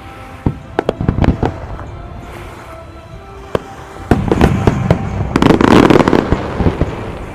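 Aerial fireworks shells going off: a few sharp bangs in the first second or two, then from about four seconds a dense barrage of bangs and crackling that peaks near six seconds and fades. Music plays underneath.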